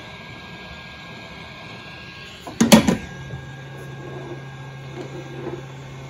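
Hot-air heat gun blowing, a steady hiss with a faint whine, while shrinking heatshrink sleeving over a coax joint. About two and a half seconds in there is a loud clatter and the blowing stops, followed by faint handling of the cable.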